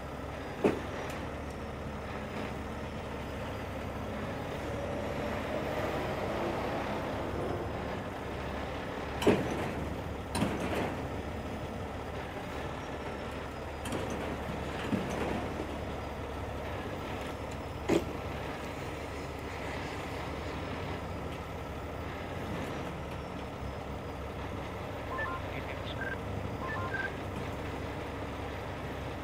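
Heavy rotator tow truck's diesel engine running steadily under load while its boom lifts a burnt semi trailer, rising in pitch a few seconds in. Sharp metal bangs and creaks from the wreck and chains several times, and a vehicle's reversing beeps near the end.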